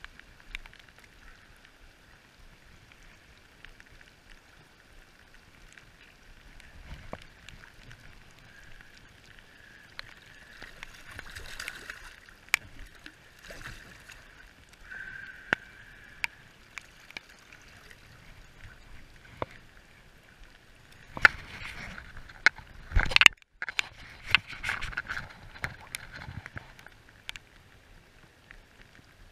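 A hooked salmon splashing and thrashing at the surface as it is played in close and landed, in steady rain. Scattered sharp ticks run throughout, with a cluster of louder splashes about three-quarters of the way through.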